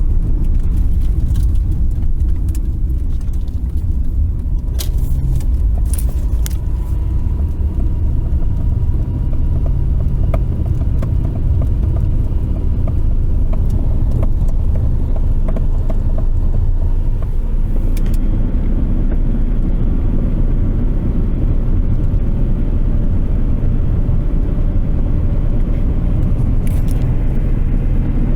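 Cabin of a 1993 Subaru Impreza with its 1.8 L EJ18 engine driving slowly: a steady low engine and road rumble, with occasional sharp pops, several around five to six seconds in and again near the end. The pops come from the middle of the dashboard and are a mystery noise that appears only once the car is fully warmed up after highway driving and then slowing down.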